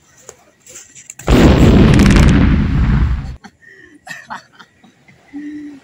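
A sudden, very loud explosion-like blast that lasts about two seconds and then dies away.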